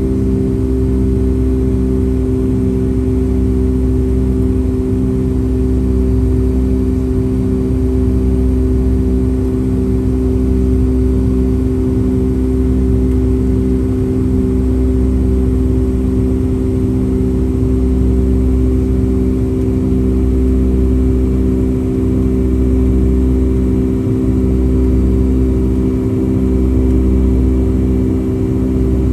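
Boeing 757-200's Pratt & Whitney PW2000 engines heard from the passenger cabin in flight: a loud, steady drone with several steady hum tones over a low rumble, and a slow regular beat about once a second.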